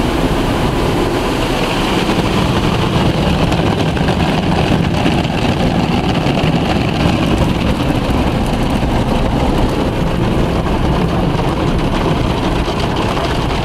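Ryko SoftGloss Maxx soft-touch car wash machine working over the car, heard from inside the cabin: a loud, steady rush of water spray and machine rumble, with the red cloth brushes closing in near the end.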